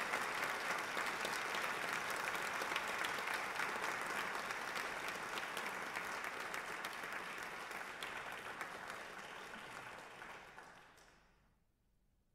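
Large audience applauding: a dense patter of many hands clapping that tapers off from about eight seconds in and dies away about eleven seconds in.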